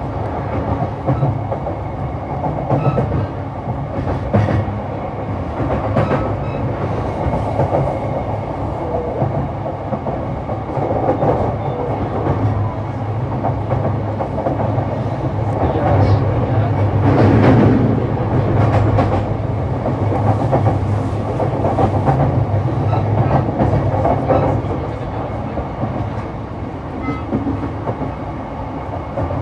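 E233 series 3000 subseries electric multiple unit running at speed, a steady rumble of wheels on rail with sharp clicks as the wheels cross rail joints. The running noise swells louder for a few seconds past the middle.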